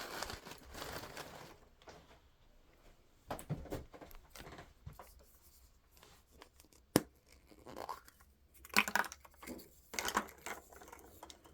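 Packaging being handled and torn open: scattered rustling and tearing, with one sharp click about seven seconds in.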